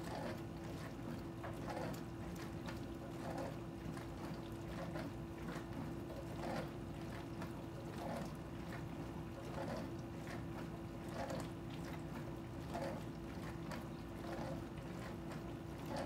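KitchenAid KDPM604KPS dishwasher running mid-cycle: a steady motor hum and rumble, with water swishing in regular surges about every one and a half seconds. It is the grinding noise the owners find too loud in this model.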